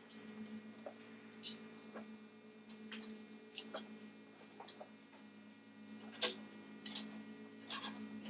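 A steady low hum with small metallic ticks and clicks scattered through it while a brass lamp part is torch-soldered; one louder click comes about six seconds in.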